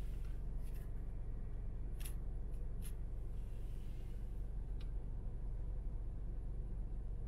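Steady low rumble inside a car stopped in traffic, its engine idling, with a few brief faint clicks scattered through it.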